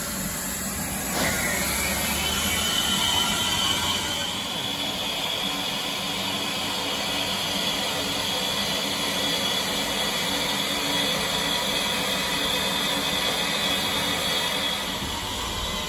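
Ivatt Class 2 steam locomotive blowing off a steady hiss of steam from low along its side, starting suddenly about a second in and easing near the end.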